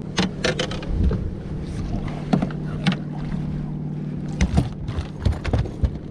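A landing net holding a striped bass being swung aboard a jon boat: a string of sharp knocks and clatters as the net's frame, handle and the fish hit the boat's side and deck. A steady low hum runs underneath.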